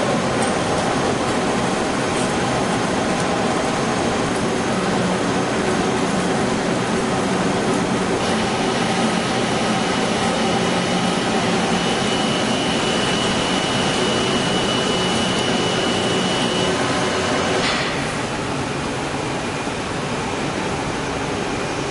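Steady machining noise from a heavy lathe at work, with a thin high whine from about a third of the way in. Near the end the sound changes abruptly and becomes slightly quieter.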